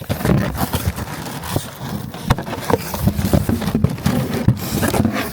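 Packaging being handled as car fog lights are unboxed: irregular knocks, taps and scraping of cardboard and parts.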